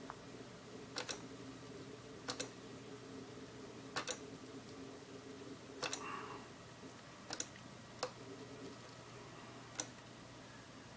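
Computer mouse button clicks every second or two, several of them quick double clicks, over a steady faint hum of the computer.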